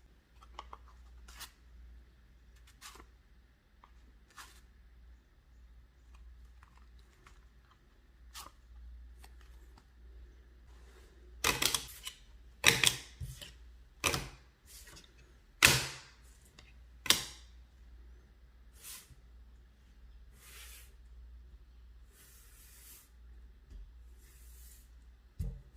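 Playing cards handled in a series of effects. First come faint small clicks as a card is slid into a deck and picked out. Then a run of sharp slaps as cards are thrown and land, and then soft swishes of a card sliding across a table, with one sharp tap near the end.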